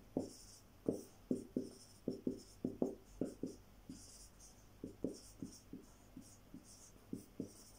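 Whiteboard marker writing and drawing on a whiteboard: many short, irregular strokes as the tip is drawn across the board and lifted, fairly quiet.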